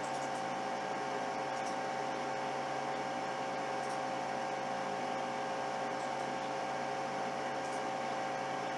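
Steady whirring hum and hiss of a SIKA TP Premium temperature calibrator's cooling fan running as it brings its block to the set temperature, with two steady tones and a few faint ticks.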